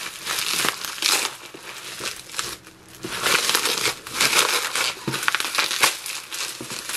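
Plastic packaging crinkling and crumpling in the hands as it is torn open and pulled off, in irregular rustling bursts.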